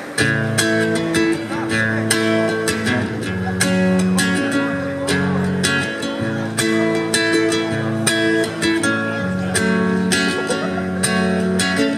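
Acoustic guitar strummed in a steady rhythm, ringing chords of a song's instrumental introduction.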